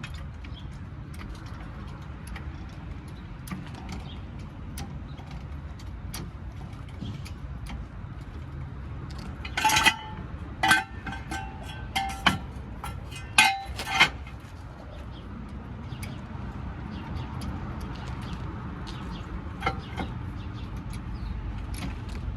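Metal hand tools clinking: a cluster of sharp clinks with a short ring about ten to fourteen seconds in, over a steady low rumble.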